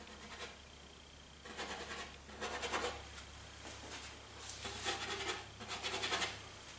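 Paintbrush bristles scrubbing oil paint, several short scratchy bursts of quick back-and-forth strokes, over a steady low room hum.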